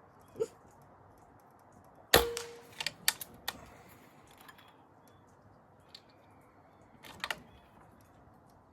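A single suppressed shot from a Benjamin Armada PCP air rifle fitted with a Big J's Custom Airguns moderator: a sharp report about two seconds in, with a short ring. Several smaller sharp clicks follow, and a quick double click comes near the end.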